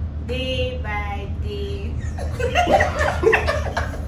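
A woman's voice holds a few steady notes, like a short sung line, then about two seconds in several people break into laughter together.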